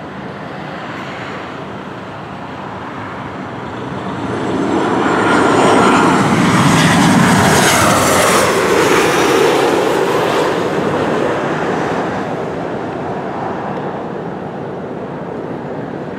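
Boeing 737 jet airliner on landing approach passing low overhead. The jet noise builds, peaks about halfway through with a high whine that falls in pitch as the plane goes by, then fades away.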